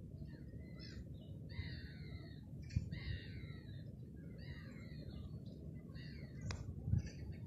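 Birds calling outdoors in a run of short, rough, repeated calls over a steady low background rumble, with one sharp click near the end.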